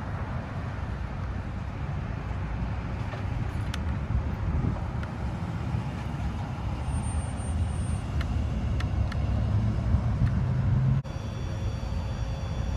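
Steady low rumble of a truck engine and road traffic, growing louder shortly before it changes abruptly about eleven seconds in.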